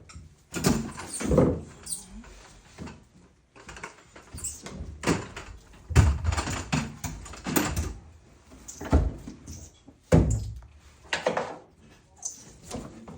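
Irregular knocks, clunks and short scrapes of tools and parts being handled while working on a shower valve, a dozen or so hits at uneven spacing.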